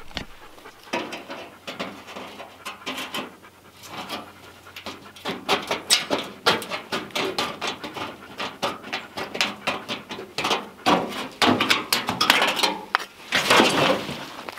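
A golden retriever panting in quick, rhythmic breaths, about four to five a second, heaviest near the end.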